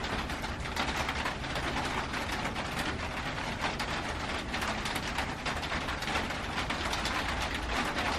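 Heavy rain drumming steadily on a metal roof, a dense patter of many tiny ticks.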